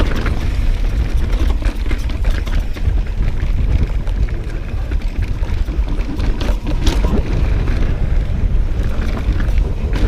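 Wind buffeting the microphone of a handlebar-mounted camera on a mountain bike riding down a rocky dirt trail, a steady low rumble, with frequent rattles and clacks from the bike jolting over rocks.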